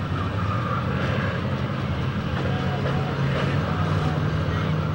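Demolition-derby cars' engines running, a steady low drone under a wash of noise.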